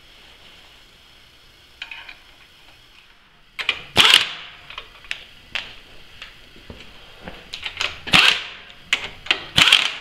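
Sharp metal-on-metal clanks and clicks, scattered and irregular, the loudest about four, eight and nine and a half seconds in: steel parts and a hand tool knocking against the clamp and studs of a hydraulic press frame as its nuts are fitted and tightened.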